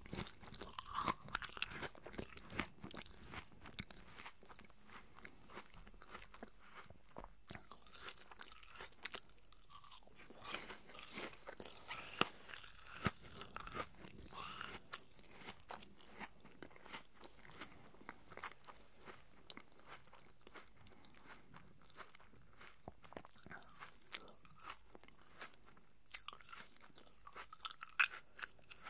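A mouth chewing pieces of crisp, juicy apple right at the microphone: wet crunches and mouth clicks. The crunching comes in busier spells at the start, around the middle and near the end, with sparser chewing between.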